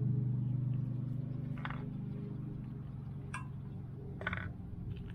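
A passing vehicle's engine hum, steady and low, slowly fading away, with a few short light clicks about one and a half, three and four seconds in.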